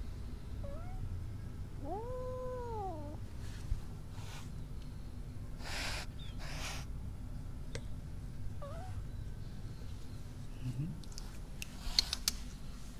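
Orange kitten giving one drawn-out meow that rises and falls about two seconds in, then two short defensive hisses in quick succession around the middle. A few sharp clicks near the end.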